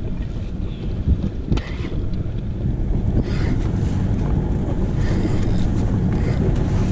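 Small fishing boat's outboard motor running steadily under way, with wind buffeting the microphone and the sea washing along the hull. A couple of brief knocks sound in the first two seconds.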